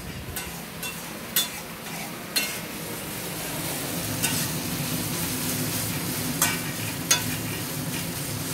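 Dry fish frying in oil in a steel wok, sizzling steadily, while a metal spatula stirs it and scrapes and clinks sharply against the pan about six times. The sizzle grows louder about three seconds in.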